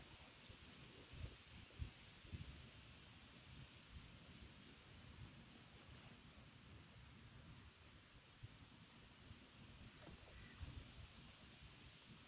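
Near silence: faint outdoor riverbank ambience with light low rumbles of wind on the microphone and faint high bird chirps.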